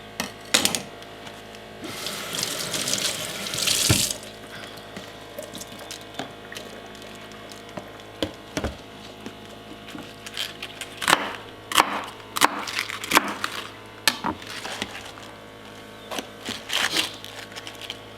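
Kitchen sink tap running while vegetables are rinsed, with the rush of water loudest about two to four seconds in, then a scatter of sharp knocks and clatters as things are handled in the sink.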